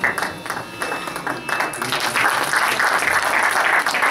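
Audience applause at the end of a performance: scattered claps at first, swelling to full, dense applause about two seconds in.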